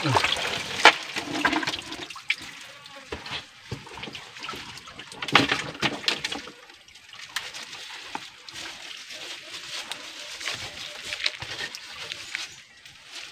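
Hands and feet splashing and sloshing in shallow muddy water among stones, with irregular sharper splashes, the loudest about a second in and about five seconds in.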